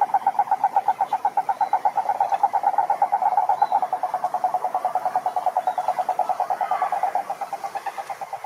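A frog calling in one long, rapid trill of evenly spaced pulses, about ten a second, on a steady mid pitch; it fades slightly near the end.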